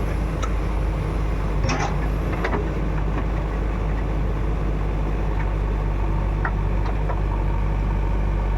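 Heavy diesel engine of earth-moving machinery running steadily, with a few short knocks.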